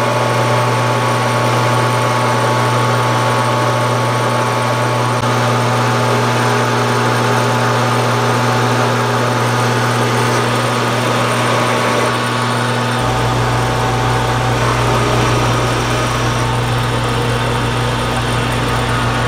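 Metal lathe running under power while a turning tool cuts a metal bar down in diameter: a steady motor and gear hum with the hiss of the cut. A deeper hum joins about two-thirds of the way through.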